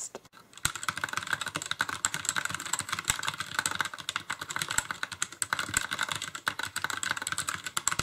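Fast typing on a DIERYA DK66 60% mechanical keyboard: a rapid, continuous run of key-switch clicks and keycap clacks, starting about half a second in.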